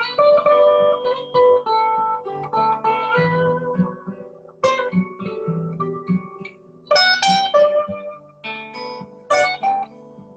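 Guitar playing an instrumental passage of a song, a run of plucked notes and chords with no singing.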